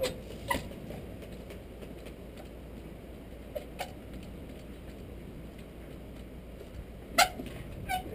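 Trials bike hopping on a stone wall: sharp knocks with a brief metallic ring as the tyres land on the stone, coming in three pairs, the loudest about seven seconds in.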